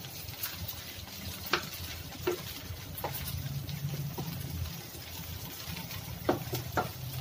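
Wooden spatula scraping and knocking against a non-stick frying pan as egg is broken up and stirred, about half a dozen irregular knocks over a faint frying sizzle and a steady low hum.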